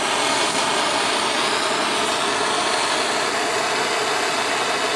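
Handheld refillable butane torch burning with a blue jet flame: an even rushing hiss that holds a steady level, its butane already warmed by an earlier start that morning so the flame does not fluctuate.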